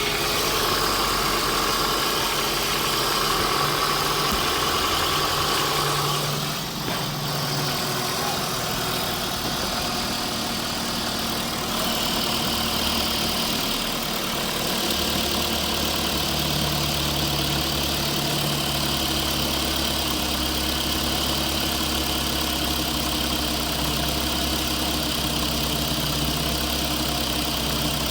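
Remote-control construction machines running with a steady, engine-like idle, a low hum that steps up and down in level, and a brief dip about six and a half seconds in.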